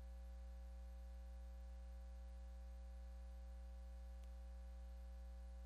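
Low, steady electrical hum with faint higher tones over it, with one faint click about four seconds in.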